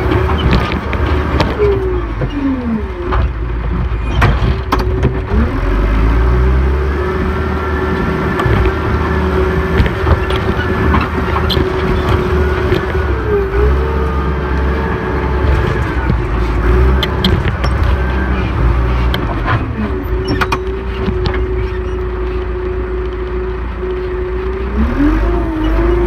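John Deere 310E backhoe's diesel engine running steadily under working load. A steady whine over it dips and recovers in pitch several times, with occasional sharp knocks and clanks.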